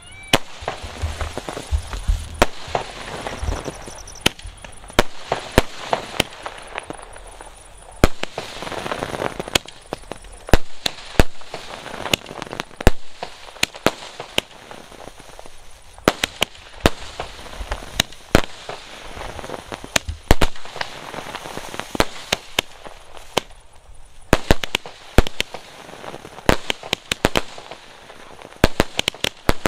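Aerial fireworks bursting overhead: a long, irregular run of sharp bangs and cracks, with a rushing hiss between them and a few low thuds in the first few seconds.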